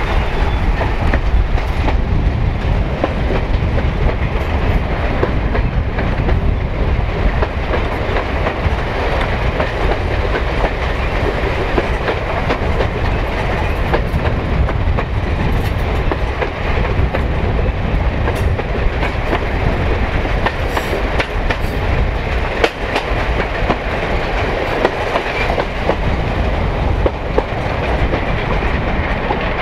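Diesel railcar train running along the line, heard from an open carriage window: a steady rumble of wheels on the track with light clickety-clack over the rail joints, and wind rushing past the microphone.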